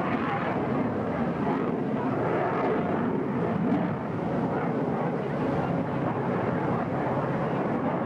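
Fighter jet passing overhead: a steady, dense rushing engine noise that holds level without a clear rise or fall.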